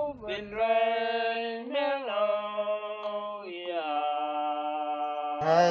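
A voice chanting in long, steady held notes, about three or four notes with short breaks between them and a change of pitch at each new note.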